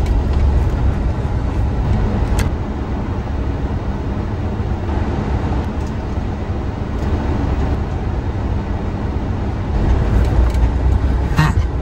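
A four-wheel-drive vehicle's engine idling, a steady low rumble heard from inside the cabin, with a single sharp click about two seconds in.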